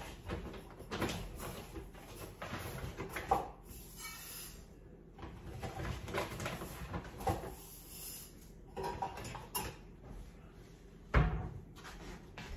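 Rummaging in a low kitchen cupboard: scattered knocks and clatter of cookware being moved, with one louder bang near the end.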